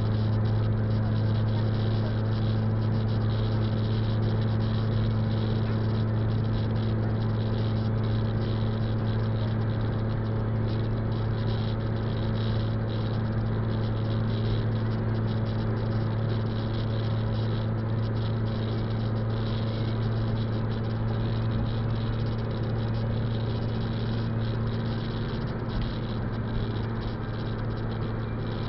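Car interior noise while driving at highway speed on a wet road: a steady low hum with an even hiss of tyre and road noise.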